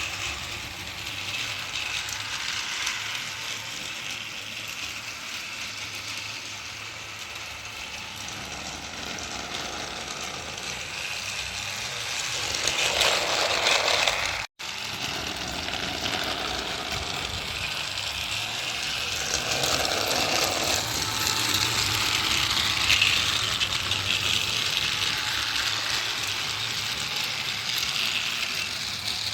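Battery-powered motorized Thomas toy engine running on its plastic track, its small motor and gears going steadily with a light rattle from the cars, cut off for an instant about halfway.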